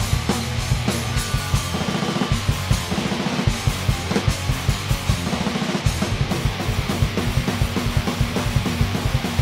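Heavy metal drumming on an Eastar beginner acoustic drum kit, played along to a backing track: fast bass drum hits, thickest about two to three seconds in, with snare and cymbals over a steady band backing.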